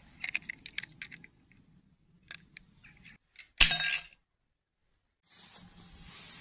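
Light rustling and small plastic clicks of a doll being handled in grass, then one sharp clink and clatter with a brief ring: small plastic dolls landing in a ceramic bowl.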